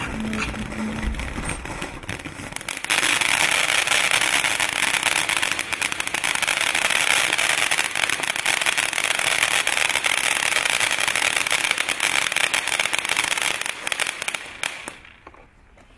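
Ground fountain firework spraying with a steady hiss; about three seconds in it breaks into loud, dense crackling from its crackling stars, which runs on and then dies away near the end.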